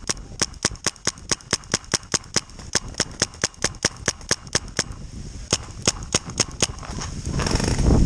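Paintball marker firing in rapid, even strings of shots, about four or five a second, with a short break about five seconds in before a few more shots. Near the end, dry leaves rustle and crunch underfoot as the player moves.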